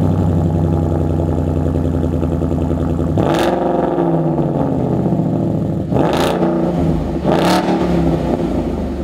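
2015–2017 Mustang GT's 5.0 L Coyote V8 through a Roush stainless-steel axle-back exhaust, idling steadily, then revved three times, about three, six and seven and a half seconds in, each rev rising and dropping back to idle. The exhaust note is an aggressive one.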